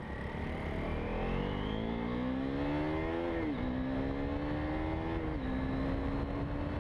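KTM Duke's single-cylinder engine accelerating under way, its revs climbing, then dropping sharply at an upshift about three and a half seconds in and again at a second upshift about five seconds in, then running steady, over low wind rumble on the microphone.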